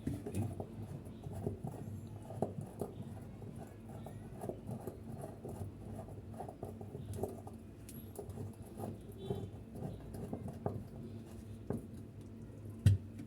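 Light, irregular clicking and scratching of hands and a tool working on washing machine parts while a bolt is put back in place, with one sharper click near the end.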